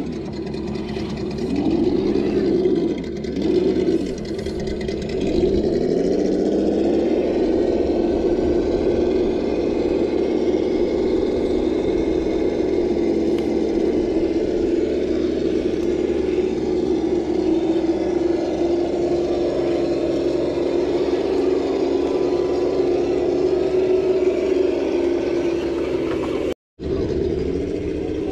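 Electric motor and geared transmission of a Traxxas TRX-4 Defender RC crawler whining under load as it climbs wooden ramps. The pitch rises and falls a few times with the throttle in the first few seconds, then holds steady, with a brief drop-out near the end.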